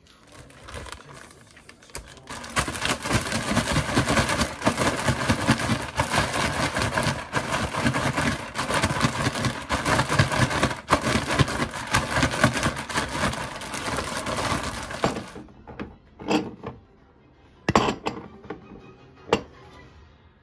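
Plastic bag holding cubed daikon and chili powder crinkling and crackling loudly as it is shaken and kneaded, a dense run of rapid crackles lasting about thirteen seconds that stops abruptly. A few single sharp knocks follow near the end.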